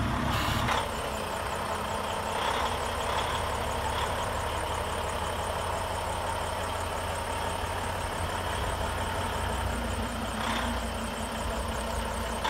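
Diesel engine of a Volvo semi tractor idling steadily with a low rumble.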